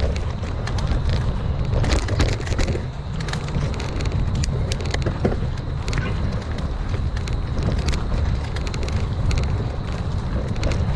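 Mountain bike rolling along a dirt forest trail: a steady low rumble of tyres on the ground with frequent clicks and rattles from the bike and trail.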